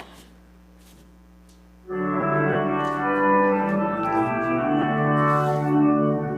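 Organ starts playing about two seconds in, holding sustained chords; before it only a low steady hum is heard.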